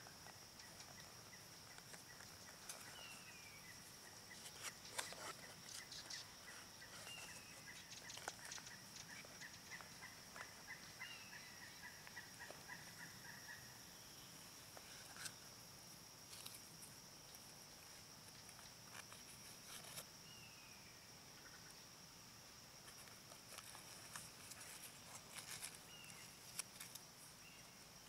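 Faint woodland ambience: a steady high insect drone, a few short falling bird chirps, and an even pulsing trill that runs from about four seconds in to about thirteen seconds, with scattered light rustles.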